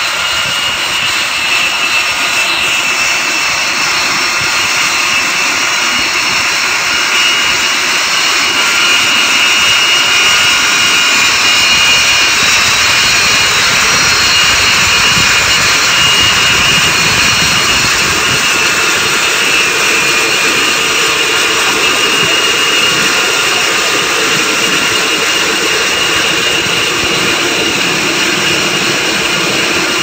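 Lockheed Martin F-35B's F135 jet engine running with its lift fan engaged, in short-takeoff/vertical-landing mode: steady loud jet noise with high whining tones, swelling slightly toward the middle.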